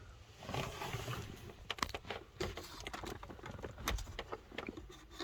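Hands working the radio assembly loose in a 2007 Mazda 6 dashboard: a rustling scrape starting about half a second in, then a string of sharp clicks and knocks.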